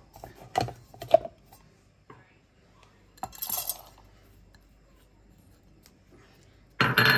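Stainless-steel spice grinder cup being handled: a few sharp knocks and clinks in the first second or so, then a short gritty rustle of dry spices poured into the cup a little after three seconds, and a louder clatter near the end.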